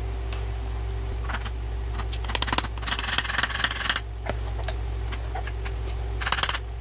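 A screwdriver being driven against a stuck A-arm bushing to beat it out: bursts of rapid knocking and scraping, the busiest from about two to four seconds in and again shortly before the end.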